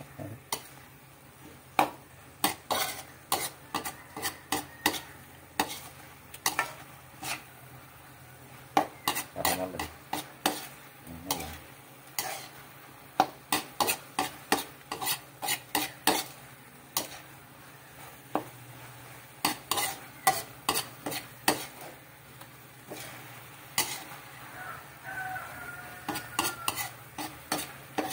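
A cooking utensil scraping and knocking against an aluminium frying pan while ground pork is stirred and sautéed, irregular sharp clacks over a low sizzle.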